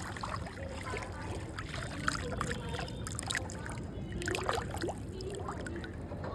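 Ganges river water lapping and trickling against the bank, with many small splashes and faint voices of people in the background.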